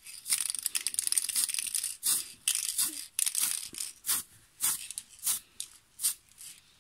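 Small aerosol can of silver paint spraying: near-continuous hissing for about the first two seconds, then short puffs of spray about every half second.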